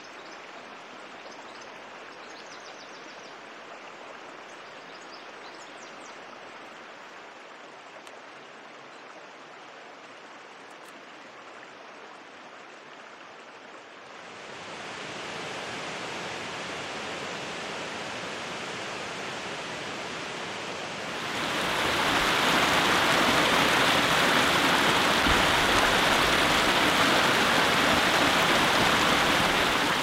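Flowing water: a snowy mountain creek running over rocks. It grows louder in two steps, about halfway through and again about two-thirds in, ending in the loud, even rush of a waterfall cascading over rock.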